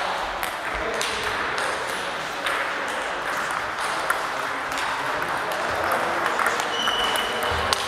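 Table tennis rally: the ball clicking off bats and table in quick exchanges, with more ball clicks from other tables nearby and a faint murmur of voices in a large hall.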